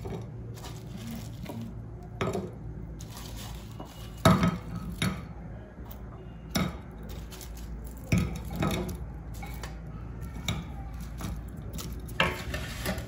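Fried dumplings set down one by one on a ceramic plate: a string of irregular light knocks and clatters against the plate, the loudest about four seconds in, over a steady low hum.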